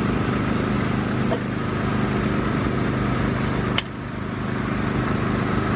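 Diesel engine of a MAN heavy-haulage tractor unit running steadily as it moves an empty multi-axle modular trailer. A single sharp click comes about two-thirds of the way through.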